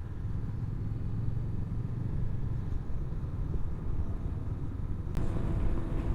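Honda CB500X parallel-twin engine running with low road and wind rumble while riding. About five seconds in there is a brief click and the engine note becomes a little louder and more distinct.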